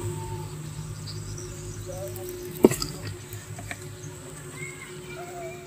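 Honeybees buzzing steadily around their opened nest, with a single sharp click a little under halfway through.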